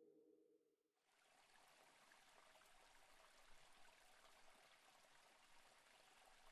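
Faint, steady running water like a stream, coming in about a second in as the last of the background music fades away.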